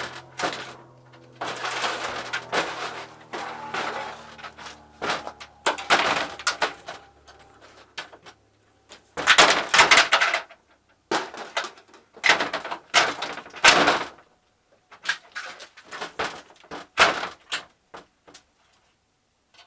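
Flat-screen TV parts being handled and pulled apart: irregular knocks, clatters and scraping rustles, with a faint low hum for the first several seconds.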